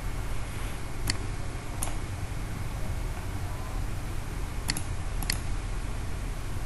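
Computer mouse clicking four separate times: once about a second in, again near two seconds, and twice more a little over half a second apart around the five-second mark. Under it runs a low steady hum of room noise.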